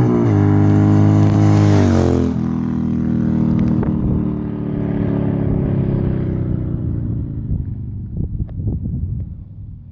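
Custom Harley-Davidson Sportster's V-twin engine passing by at speed: a loud, steady note whose pitch drops as the bike goes past, with a second drop about two seconds in, then fades away over several seconds.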